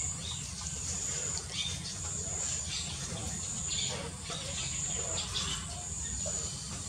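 Insects trilling: a high-pitched trill that comes and goes in pulses about once a second, over a low steady rumble.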